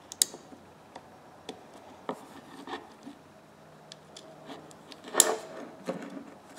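Small metal clicks and scraping as the gear and switch parts of an old Plomb 1/2-inch ratchet are worked into the ratchet head by hand, with a sharper click about five seconds in.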